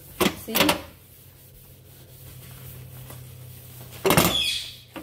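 Kitchen sponge rubbing faintly over a soapy gas stovetop, with a short loud scrape and knock about four seconds in.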